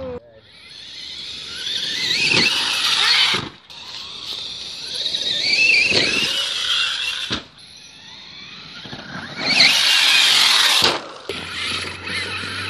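An Axial Yeti XL RC truck's 2200kv Castle brushless motor and drivetrain whining under throttle on a 4S battery, in three long bursts whose high pitch rises and falls with speed, each cutting off suddenly.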